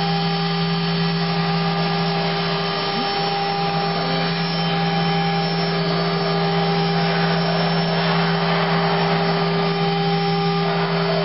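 Spindle of a Unistar 1325 CNC router running steadily as its bit engraves foam board: an even machine hum and whine with several steady tones, and a rough cutting noise over it.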